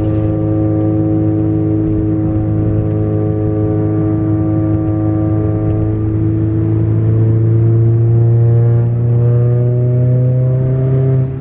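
Straight-piped turbocharged four-cylinder engine of a 10th-gen Honda Accord pulling under load, with no muffler or resonator. The exhaust note rises slowly in pitch as the revs climb and grows louder past the middle, then drops briefly right at the end.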